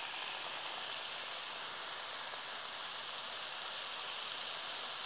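Ground-beef smashburger patty sizzling steadily on a hot steel flat-top griddle, pressed flat under a burger press to sear the bottom.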